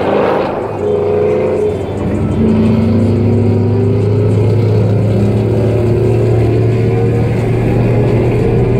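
Car engine droning with road noise inside the cabin at highway speed, building over the first couple of seconds and then holding steady.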